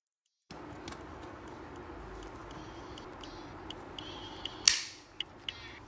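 Metal six-ring binder mechanism snapping with one loud, sharp clack about three-quarters of the way in, after a few small handling clicks over a low room hum.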